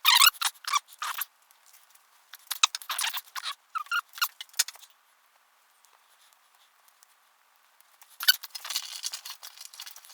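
Pre-perforated foam being handled, squeaking and rustling as pieces are pulled and pressed into place, in three bursts with pauses between.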